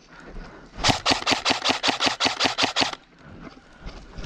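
Airsoft rifle firing one full-auto burst of about two seconds, roughly ten shots a second, starting about a second in.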